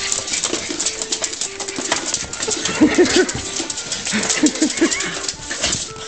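Miniature pinschers yapping at a Roomba robot vacuum: two quick runs of three short yaps, about three seconds in and again about four and a half seconds in, over a constant clatter and rustle.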